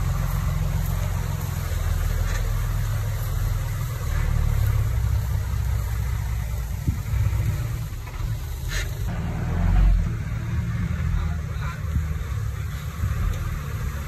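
Komatsu D20P mini bulldozer's diesel engine running steadily while pushing soil, with a brief sharp click about nine seconds in and a short rise in loudness just before ten seconds.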